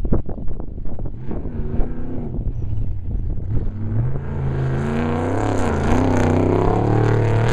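Off-road race vehicle engine at speed: irregular crackling and popping for the first couple of seconds, then a steady engine note that grows louder from about four seconds in and rises and falls in pitch as the driver works the throttle.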